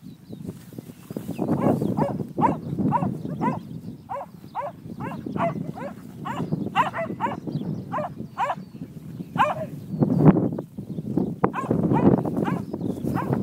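Alpacas giving their alarm call: a run of short, shrill calls, each falling in pitch, about two a second for some eight seconds, raised at a dog herding them. A low rumbling noise lies under the calls.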